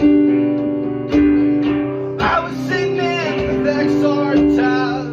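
Live band playing: an acoustic guitar strums chords over held keyboard tones. A voice sings a line from about two seconds in.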